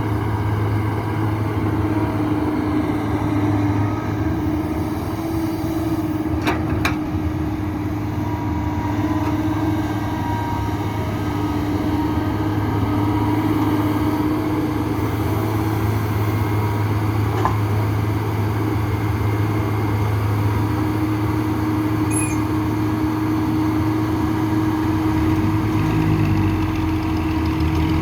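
Excavator's diesel engine running steadily as a low, even drone, with two sharp knocks about six and a half seconds in.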